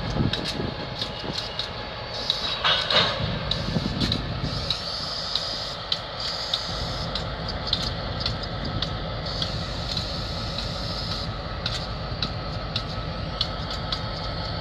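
Diesel switcher locomotives working a rail yard, heard from a distance as a steady low rumble. There is a brief hiss about three seconds in, and scattered sharp clicks and knocks.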